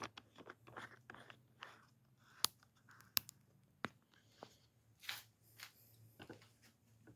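Faint scattered clicks and knocks of hands handling metal engine parts and tools, with three sharper clicks in the middle.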